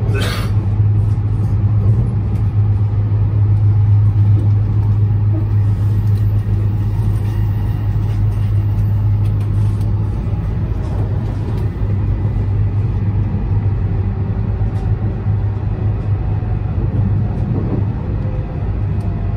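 Cabin running noise of a Tohoku Shinkansen Tsubasa train: a steady low hum and rumble from the running gear, easing slightly as the train slows into the station.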